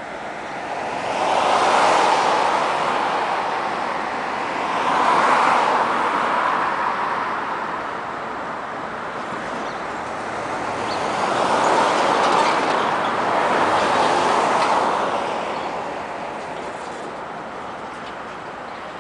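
Freight train boxcars rolling past, a steady rumble of wheels on rails that swells and fades several times.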